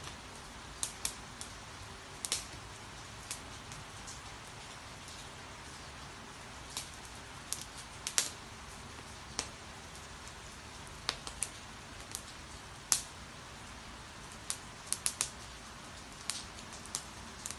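Steady rain hiss, with a branch fire in a metal fire pit crackling: irregular sharp pops and snaps, a few of them coming in quick clusters.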